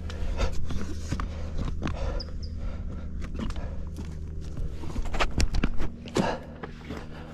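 Footsteps of hikers on rough canyon ground: irregular steps and scuffs.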